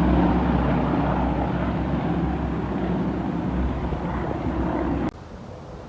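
Aircraft flying past at an air show, a loud steady engine rumble with a rushing noise, which cuts off abruptly about five seconds in.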